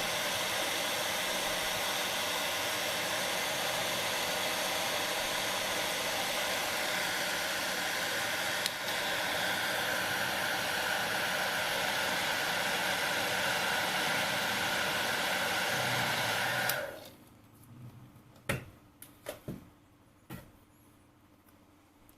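Hair dryer blowing steadily to warm and half-dry contact glue on a shoe's sole edge, switched off suddenly about three-quarters of the way through. A few short knocks follow.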